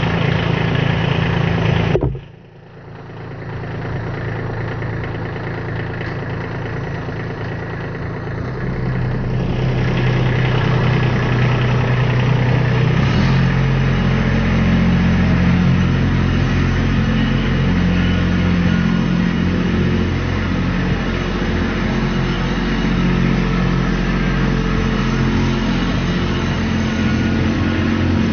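Kubota compact tractor's diesel engine running. It is loud for the first two seconds, drops off abruptly, then idles, and comes up in speed from about ten seconds in, running steady at higher revs as the tractor drives off with its backhoe.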